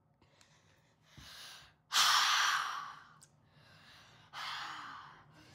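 A boy's heavy breathing through the open mouth: three huffing breaths, the loudest about two seconds in. It is panting against the burn of Carolina Reaper hot sauce.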